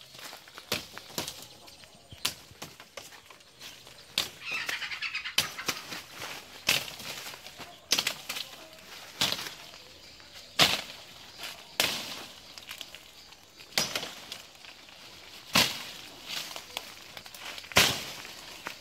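Footsteps crunching through dry leaves and twigs on a bush path, about one step a second, with a short stretch of rustling brush about four seconds in.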